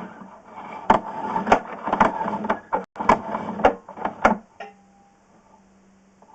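Sewer inspection camera's push cable being pulled back by hand, clattering and clicking irregularly as it feeds onto its reel. After about four and a half seconds it stops, leaving a faint steady hum.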